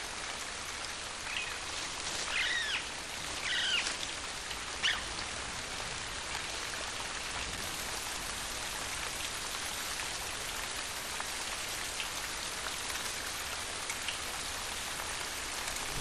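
Steady heavy rain pouring down, with a few short rising-and-falling calls between about one and five seconds in.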